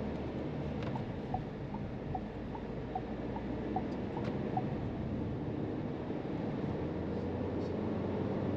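In-cabin engine and road noise from the SsangYong Torres's 1.5-litre turbo petrol engine as the SUV accelerates moderately through the gears. From about a second in, a quick run of short electronic beeps, about two and a half a second, goes on for a few seconds and stops near the middle.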